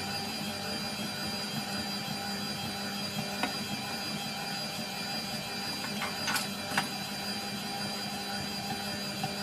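Stand mixer motor running steadily as its dough hook kneads a wet bread dough in a stainless steel bowl, played at double speed. There is a steady hum with a high whine, and a few short clicks about three and six seconds in.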